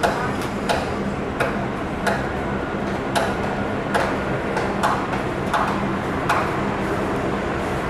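AgustaWestland AW139 twin-turbine helicopter hovering, heard from a distance: a steady engine and rotor drone with a sharp tick about three times every two seconds.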